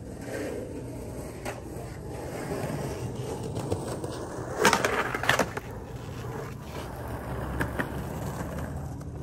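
Skateboard wheels rolling on street asphalt, a steady rumble that grows slightly as the rider comes closer. There is a cluster of sharp clacks about halfway through and a couple more near the end.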